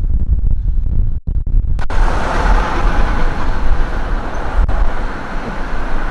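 Steady outdoor road traffic noise mixed with wind rumbling on the microphone. Just under two seconds in, the noise abruptly turns fuller and brighter.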